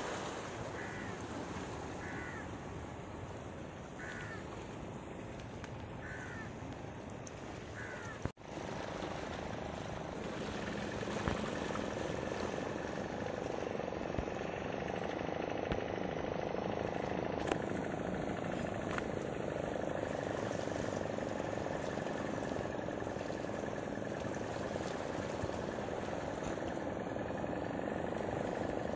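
Steady wash of sea water and wind around the rocks of a breakwater. For the first several seconds a short chirp repeats about once a second. After a brief break a faint steady drone joins the wash.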